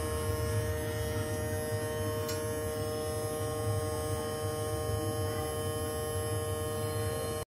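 Steady electrical hum with a higher whine over it, unchanging throughout and cutting off suddenly at the end.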